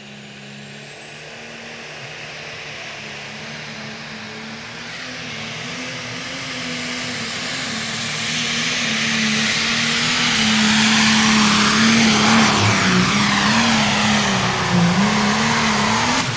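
Pro Stock pulling tractor's diesel engine running at full power as it hauls the weight-transfer sled down the track, growing steadily louder as it comes closer, with a thin high whistle above it.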